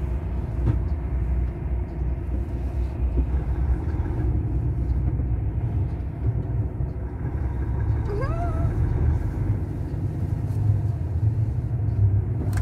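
Truck engine and cab rumble while driving slowly, heard from inside the cab, with a brief rising squeal about eight seconds in.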